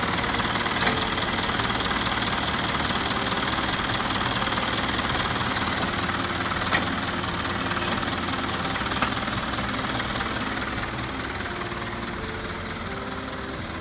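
Isuzu Elf truck's diesel engine idling steadily, fading slightly near the end, with one sharp tick about halfway through.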